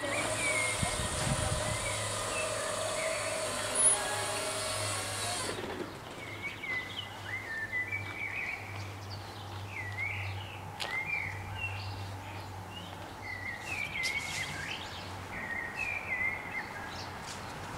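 Level-crossing barrier drives running as the booms lower, a steady whine with a sharp clunk about four seconds in, cutting off suddenly a little later. Then birds chirping over a low steady hum.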